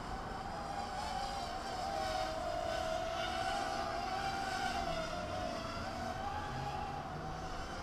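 Small X6 toy quadcopter hovering: its motors and propellers give a steady whine whose pitch wavers up and down a little as the throttle is worked.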